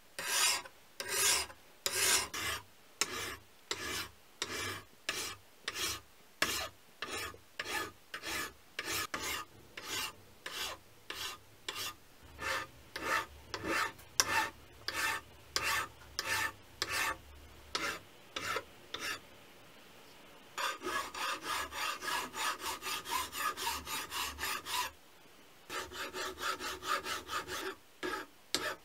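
Flat hand file rasping across a small steel block held in a bench vise, in steady strokes about two a second. About two-thirds in the strokes pause briefly, then come quicker and closer together, break off again, and resume.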